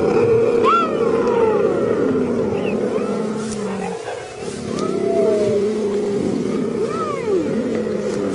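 Several large wild animals calling and growling together, many overlapping cries that slide up and down in pitch over a steady low rumble.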